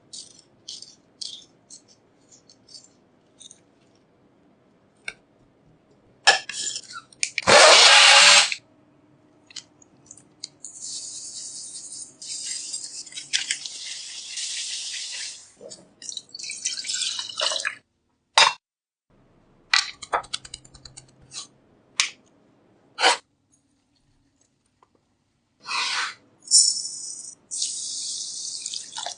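Kitchen food-preparation sounds: scattered clicks and knocks, a loud rush about eight seconds in, and long stretches of hissing, the longest lasting several seconds.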